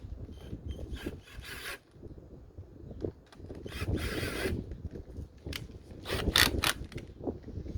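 Hand-tool and parts handling on a small motorcycle while its seat is removed: irregular mechanical clicks and rubbing, with three louder scraping, rasping bursts about one and a half, four and six and a half seconds in.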